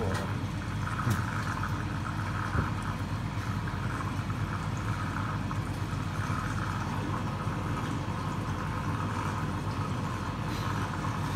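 Steady low mechanical hum of running aquarium equipment, with a few faint clicks.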